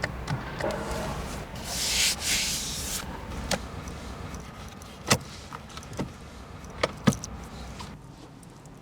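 A brief hissing swell, then a series of sharp separate clicks from a BMW 4-series convertible's controls and latches, the loudest about five and seven seconds in.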